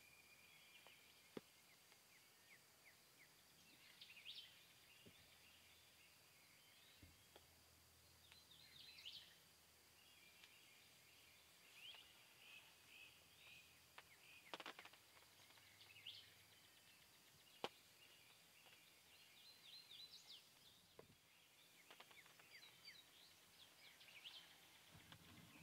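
Faint field ambience of distant small birds chirping in short repeated phrases, over a thin steady high tone, with a few sharp clicks.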